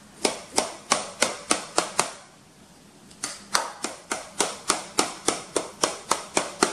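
Sharp, evenly spaced clicking, about three a second, that stops for about a second some two seconds in and then starts again.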